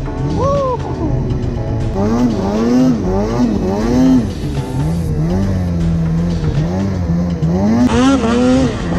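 Snowmobile engine revving up and down over and over, its pitch rising and falling about once a second, with a short steady stretch in the middle.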